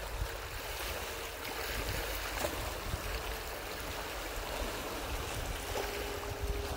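Small waves lapping and washing against the rocks at the edge of a freshwater loch, a steady watery wash over a low rumble.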